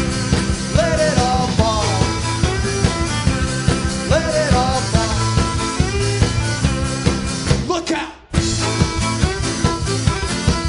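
Live band playing an instrumental break between verses: strummed acoustic guitar, drum kit and upright bass with a steady beat, and sliding melody notes on top. The sound cuts out abruptly for a moment about eight seconds in.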